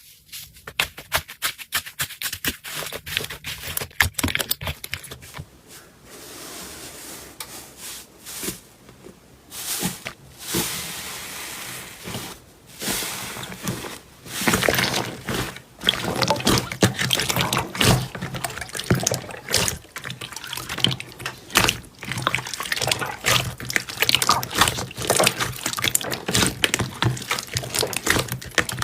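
Slime being worked by hand: dense runs of small sticky clicks, pops and crackles, with a few smoother wet stretches between them.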